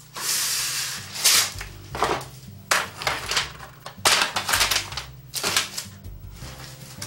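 Plastic packaging and wrap crinkling and rustling as it is handled. One long crackle comes at the start, then shorter crinkles come irregularly every half second to a second.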